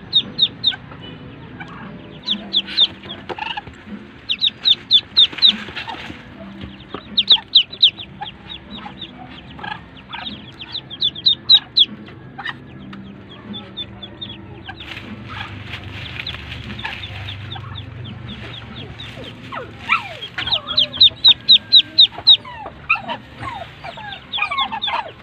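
Ducklings peeping: runs of short, high peeps several times a second, broken by brief pauses.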